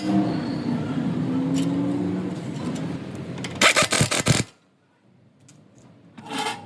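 A vehicle engine running steadily, then a quick cluster of loud knocks, a near-silent pause, and a short burst of noise near the end.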